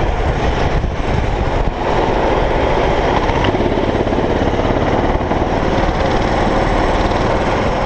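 Go-kart engine running steadily under way, heard close up from a camera mounted on the kart, with the engines of other karts nearby. The sound gets slightly louder about two seconds in and then holds even.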